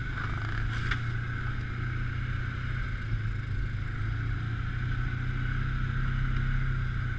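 An engine running steadily: a constant low drone with a steady higher whine above it.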